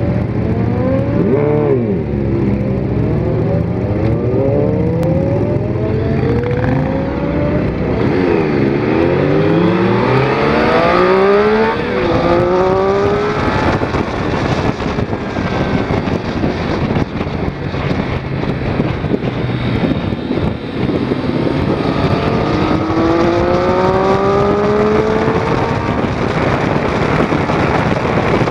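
2006 Triumph Daytona 675's inline three-cylinder engine revving up through the gears, its pitch climbing and then dropping back at each gear change, over a steady rush of wind noise.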